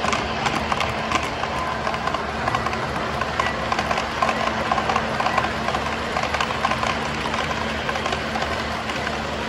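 O gauge model freight cars rolling past on three-rail track, the wheels clattering in a rapid, irregular run of small clicks over the rail joints, with a steady low hum underneath.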